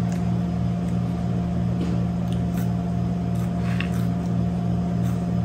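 Steady low machine hum with a slight regular throb, over faint chewing and small clicks of someone eating fries.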